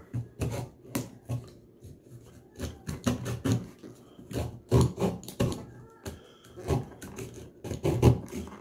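Small branch-saw blade of a Bell & Howell Tac Tool multi-tool sawing a dry branch by hand: short, uneven rasping strokes, two or three a second. The cut is slow and takes a lot of effort.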